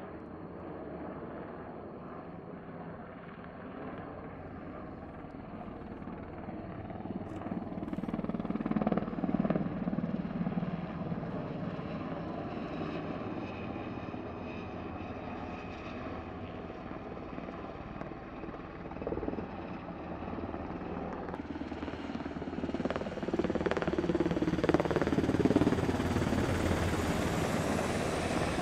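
U.S. Navy Sikorsky MH-60 Seahawk helicopter flying past with the chop of its rotor and the whine of its turbines. It swells briefly about a third of the way in, then grows steadily louder and is loudest near the end as it passes overhead.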